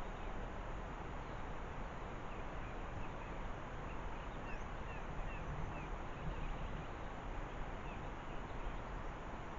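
Faint chirps from small birds over a steady outdoor hiss, with a quick run of short chirps about halfway through.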